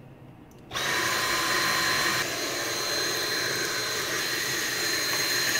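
Handheld vacuum cleaner switched on under a second in and running steadily with a whine, sucking up metal dust left from Dremel grinding on the 3D printer.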